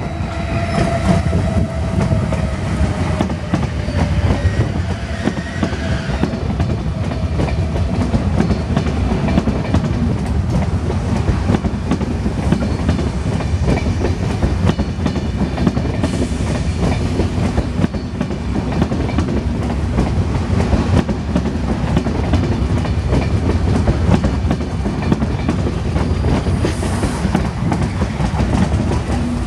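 Trenitalia ETR 700 electric train arriving slowly at a station, its wheels clattering and clicking over rail joints and points under a steady rumble. A faint whine falls in pitch over the first few seconds.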